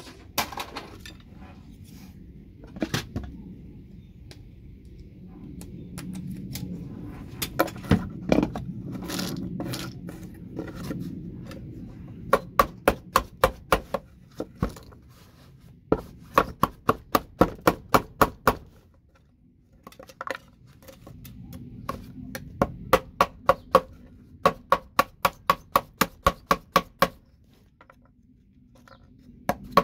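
Chisel or scraper knocking and prying the Ethernet connectors off the patch panel's circuit board. A few single knocks and some scraping come first. From about twelve seconds in there are repeated runs of sharp, quick taps, about four a second, each run lasting a second or two.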